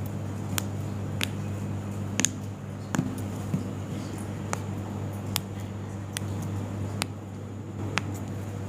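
About ten short, sharp clicks at uneven intervals, roughly one a second, over a steady low electrical hum.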